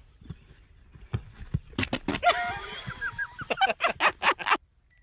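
Chicken squawking in a quick run of short, pitch-bending calls mixed with sharp scuffling noises; it cuts off suddenly near the end.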